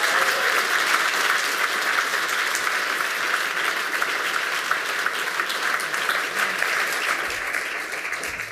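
Large audience applauding: a dense, steady clatter of many hands clapping, dying away near the end.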